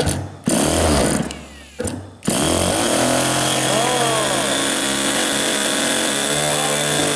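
Super Tigre X25 4 cc glow engine being started: an electric starter whirs against the spinner in two short bursts, then a little over two seconds in the engine catches and runs steadily. It is the engine's first run after many years unused.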